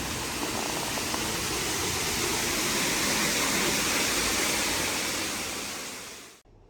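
Steady rushing of water that fades out and stops abruptly a little over six seconds in.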